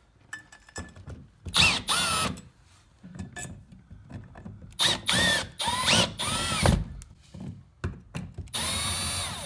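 Drill/driver driving screws to fasten the new GFCI outlet in place, in several short runs, each with a motor whine that rises and falls in pitch; the longest run comes near the end.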